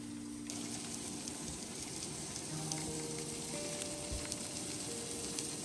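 Pork belly sizzling on a Korean barbecue grill pan over a propane camp stove: a steady crackling hiss full of small pops, starting suddenly about half a second in.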